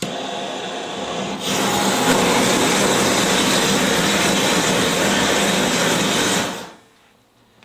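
Propane vapor at 100 psi hissing out of a wide-open spit valve, stepping up about a second and a half in to a louder, steady rush as the discharge is lit and burns as a flame. The rush stops and dies away near the end.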